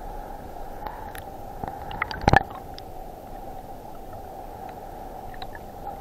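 Muffled rush of river current heard with the microphone underwater, with scattered faint clicks and one louder knock a little over two seconds in.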